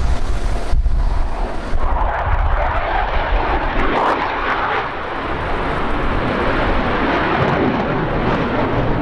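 F-15J Eagle fighter's twin jet engines passing overhead: the roar swells about two seconds in, is loudest around four seconds, then drops lower in pitch as the jet climbs away. Low wind rumble on the microphone at the start.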